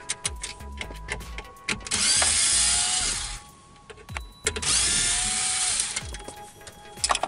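Cordless electric screwdriver with a T20 Torx bit backing out the radio module's mounting screws. It runs twice, about a second and a half each time, and the motor's whine rises as each run starts. Light clicks and taps come between the runs.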